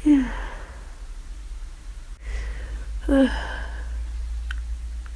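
A person with the flu in a sneezing fit: a voiced sneeze right at the start, falling in pitch, and another about three seconds in.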